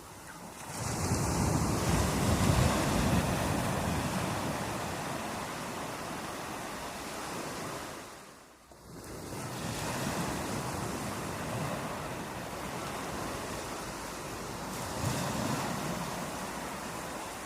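Sea waves breaking and washing up the shore. A surge builds about a second in and slowly fades, then a brief lull past the middle, then the surf rises again, with another swell near the end.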